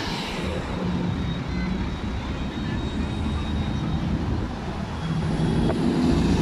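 Street traffic: vehicle engines running over a steady wash of road noise, with an engine hum growing louder near the end.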